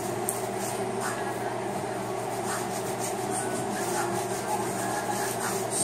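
A small paint roller rolling red ink back and forth over a manhole cover, a soft repeated rubbing with each stroke, over a steady hum.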